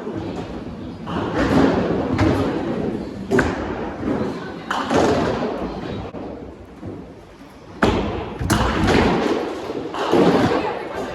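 Several sharp thuds and knocks, one after another, over a noisy background that swells and fades.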